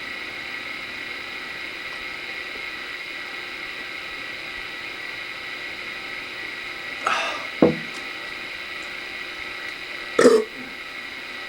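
A man burping twice, short and loud, over a steady hiss with a thin high-pitched whine.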